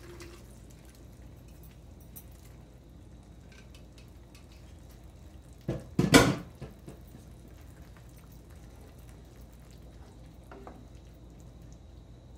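Metal cookware clattering in a short cluster of sharp knocks about six seconds in. Around it, a pan of masala and kidney beans simmers quietly with a few small clinks.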